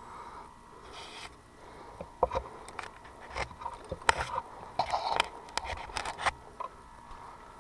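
Irregular scraping with scattered sharp clicks and knocks, busiest in the middle, over a faint steady hum.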